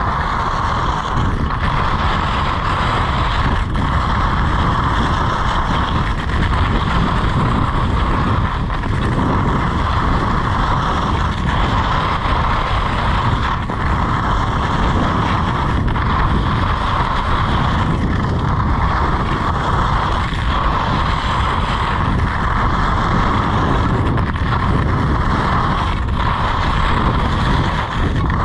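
Steady rush of wind on an action camera's microphone while skiing at speed down a groomed piste, mixed with the hiss and scrape of skis carving on packed snow.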